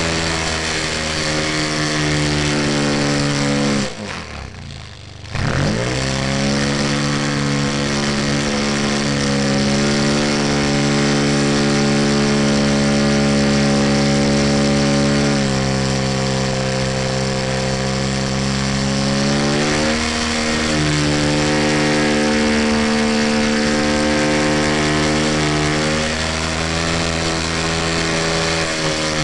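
Radio-control model airplane's engine and propeller running steadily at high power in flight. About four seconds in the throttle is chopped: the engine note falls sharply to a low idle, then rises back to full power within about a second and a half. The pitch steps down slightly about halfway through and dips once more about two-thirds in.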